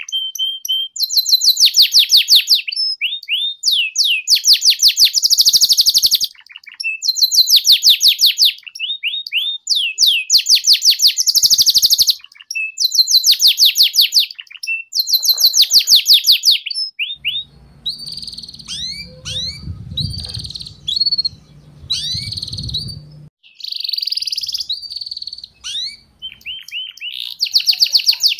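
Domestic canary singing: bursts of rapid high trills of about a second each, the fast 'ngeriwik' chatter, with short rising chirps between them. About two-thirds through, the trills give way to scattered softer chirps over a low rumble for several seconds, then the trills come back near the end.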